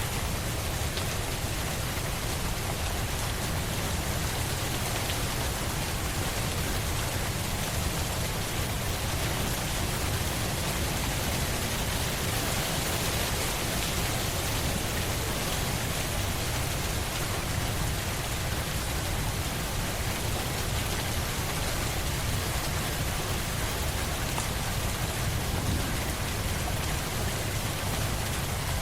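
Steady rain falling: an even, unbroken hiss of drops with a low rumble underneath.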